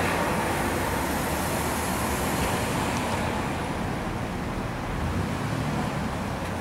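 Town street traffic: a car passing close by at the start, its sound slowly fading, over the steady hum of road traffic.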